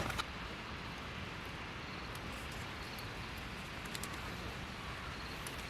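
Campfire cooking: a steady hiss with a few faint crackles, one about four seconds in.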